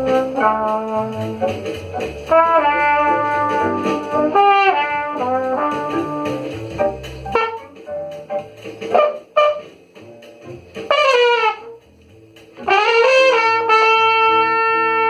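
Jazz combo with a brass horn playing the lead line over a walking bass. The bass drops out about halfway through, and the horn plays bending phrases before ending on a long held note.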